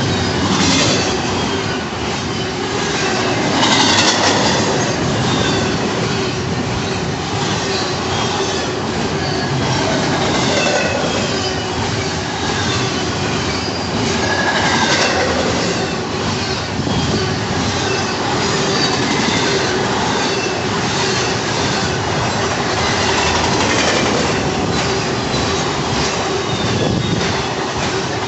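Freight train cars rolling steadily past, wheels clacking over rail joints, with intermittent wheel squeal.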